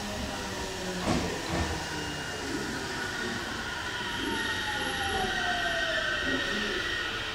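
JR Central 313 series electric train running on the rails, with two sharp clunks about a second in and a whine that falls steadily in pitch over the last few seconds.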